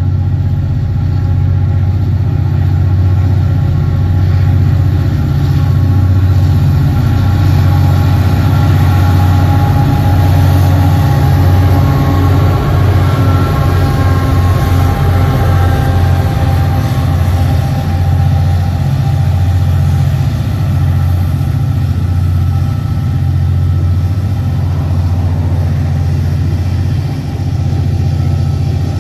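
Aurizon 2300 class diesel-electric locomotives hauling a coal train approach and pass, their engines running loudest about halfway through. The wagons then roll by with a steady rumble of wheels on the rails.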